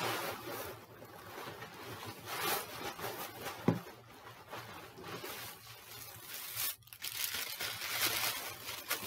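Tissue paper rustling and crinkling as it is handled and pulled away from a wrapped item, with one sharp knock a little over a third of the way in.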